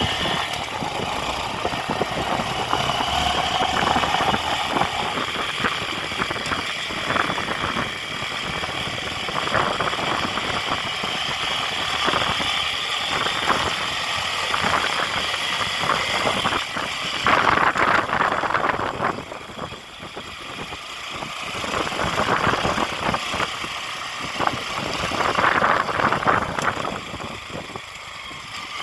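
A motor vehicle's engine running at low speed, its level rising and falling, with louder noisy stretches about seventeen and twenty-five seconds in.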